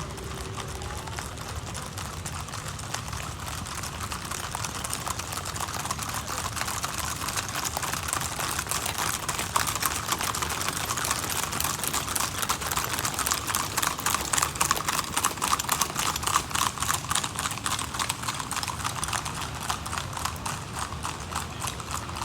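Hooves of a troop of cavalry horses clip-clopping on a hard road, many hoofbeats overlapping. It grows louder toward the middle and fades somewhat near the end, as the horses pass.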